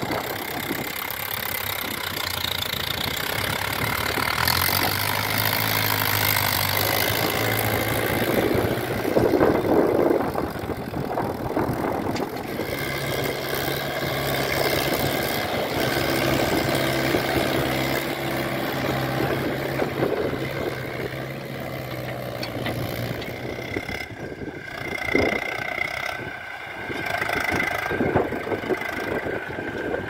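Tractor diesel engine running under load as a Mahindra Yuvo hauls a trolley heaped with earth through mud. The engine note shifts up and down several times.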